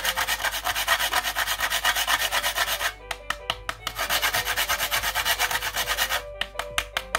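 Nutmeg scraped quickly back and forth on a metal box grater: a dry, rapid rasping. It comes in two runs, with a short break about three seconds in, and stops about a second before the end.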